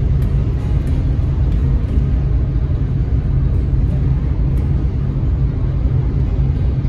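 Steady low rumble of a ferry under way across open water, mixed with wind buffeting the microphone on the open deck.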